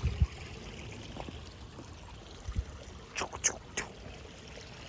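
Stream water trickling and pouring steadily. There is a low bump at the start and another about two and a half seconds in, then a quick cluster of sharp knocks about three seconds in.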